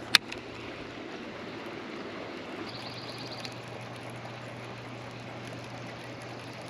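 Water running steadily into the lake, with a single sharp click just at the start, a faint steady low hum, and a brief high tone about three seconds in.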